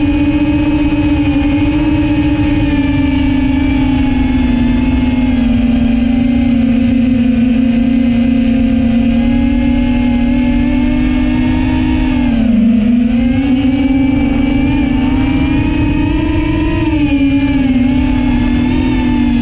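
FPV quadcopter's electric motors and propellers whining steadily, the pitch drifting up and down with the throttle, with a short dip about twelve seconds in before it climbs again.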